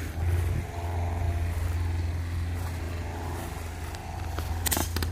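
Steady low rumble, then near the end one sharp crack from a Brocock Atomic XR PCP air rifle firing, with a second crack right after it.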